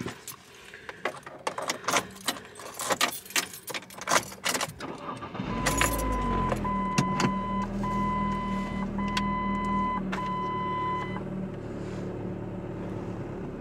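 Clicking and rustling, then about five seconds in a car engine starts and settles into a steady idle. A car's electronic warning chime beeps repeatedly at one pitch for about five seconds and then stops.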